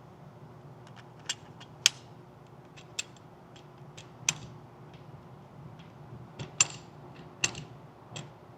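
Irregular sharp metallic clicks and clacks, about a dozen spread unevenly over several seconds, from handling a .22 pistol and its magazine, over a faint steady hum.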